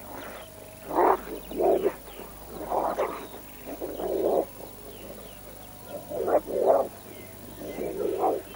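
Two dogs fighting, snarling and growling in about seven short, harsh bursts that mostly come in pairs.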